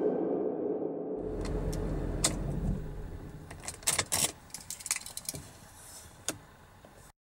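The tail of music dies away in the first second, then keys jangle and click in a string of short, sharp strokes over a low rumble. It all fades and cuts off near the end.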